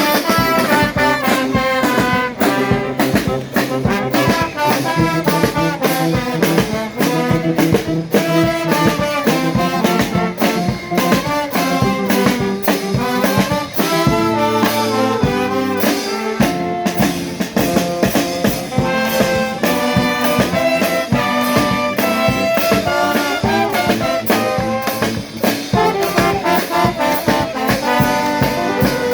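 A charanga brass band playing a lively tune: trumpets, trombones and saxophone over a steady percussion beat.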